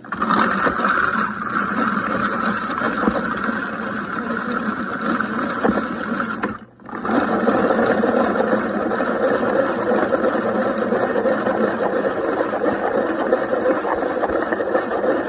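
Hand-cranked food chopper being cranked steadily, its blades chopping onion and sweet red pepper in the plastic bowl. The cranking stops for a moment about halfway through, then starts again.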